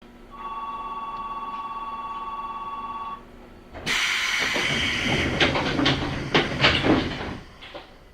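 A steady two-tone electronic signal sounds for about three seconds. Then comes a sudden loud hiss of compressed air with a series of knocks, typical of the pneumatic doors of an Eidan 8000 series subway car closing before departure.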